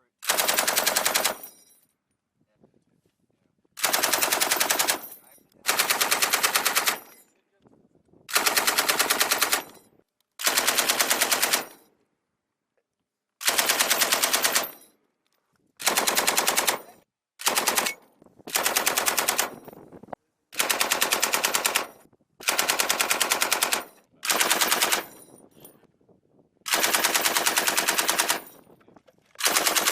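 Machine gun firing about a dozen short bursts, each a rapid string of shots lasting a second or so, with gaps of a second or two between bursts.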